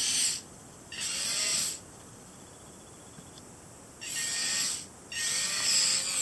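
Small electric drive motors and gearboxes of a 3D-printed 1/32-scale radio-controlled 8x8 skid steer running in four short bursts, a high gear whir with a faint whine that bends in pitch, stopping between bursts.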